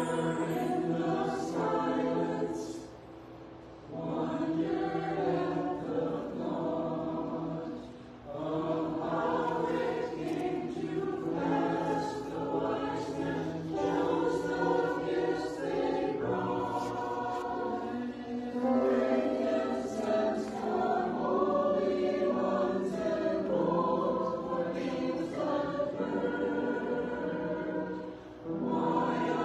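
Mixed church choir of men's and women's voices singing in phrases, with short breaks between phrases about three seconds in, about eight seconds in and near the end.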